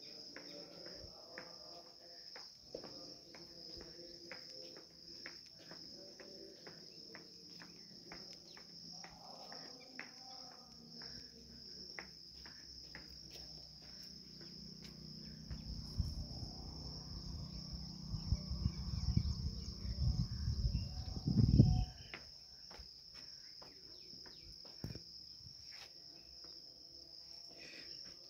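Steady, high-pitched insect chorus, like crickets, with scattered light clicks. Near the middle, a low rumble swells for several seconds, peaks, and stops abruptly.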